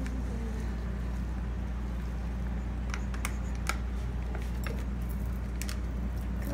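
Steady low hum with a few light clicks and taps about three to five seconds in, from hands handling the oat packet and bowl on the counter.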